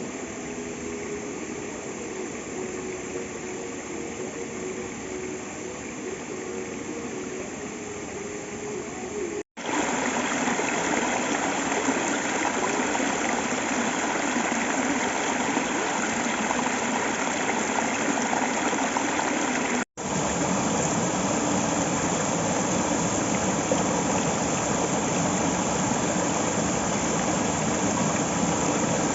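Waterfall water rushing in a steady noisy roar. In the first few seconds it is quieter, with a faint steady hum under it. After a brief cut it becomes louder and fuller, and there is a second brief break later on.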